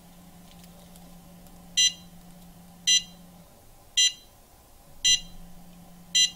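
Replica Captain Marvel pager's built-in sound effect: a series of short, high electronic beeps, evenly spaced about once a second, five in all starting about two seconds in.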